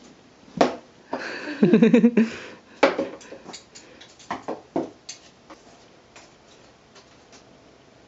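Light clicks and taps as a feather cat wand is knocked against a cardboard cat tower, mostly in the first five seconds. A brief pitched, voice-like sound stands out at about a second and a half and is the loudest thing here.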